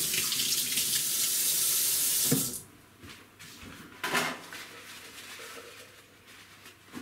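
Kitchen tap running into a sink in a steady rush, shut off about two and a half seconds in; a short knock follows about four seconds in, then faint handling noise.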